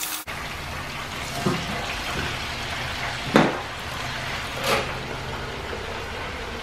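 Hot oil sizzling steadily in an electric deep fryer as the wire basket of battered ling cod is lifted and lowered, about two minutes into a three-minute fry. Three sharp metal knocks of the basket come through, the loudest about three seconds in.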